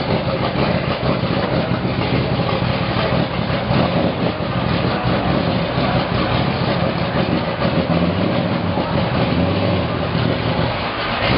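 Corvette race car's V8 engine idling steadily.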